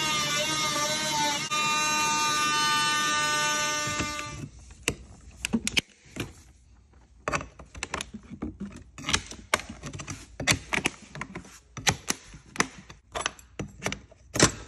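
Oscillating multi-tool running with a steady buzzing whine as its blade cuts through vinyl plank flooring, stopping about four seconds in. Then scattered sharp clicks and knocks.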